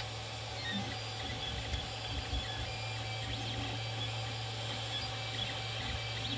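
Creality Ender 3 3D printer running a print: its stepper motors whine in short tones that keep changing pitch as the print head moves back and forth, over a steady hum.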